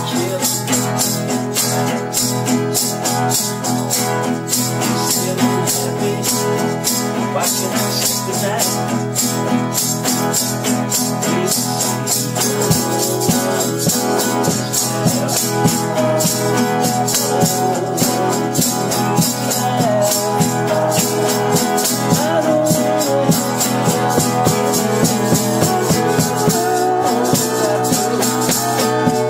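Live acoustic band playing a song: strummed guitars with a rattling shaker keeping a steady beat.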